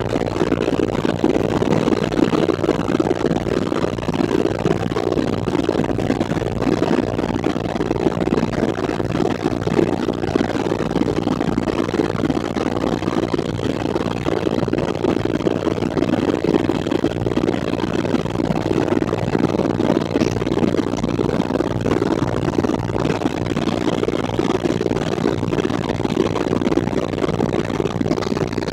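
Helicopter engine and rotor noise in flight: a loud, steady, unbroken drone.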